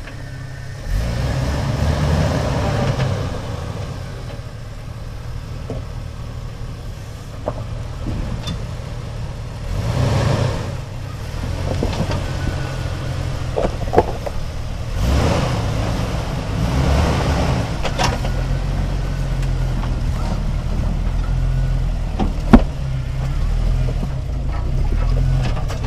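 Off-road Jeep engine running at low revs, swelling louder several times as it is given throttle. A few sharp knocks cut in, the loudest about 22 seconds in.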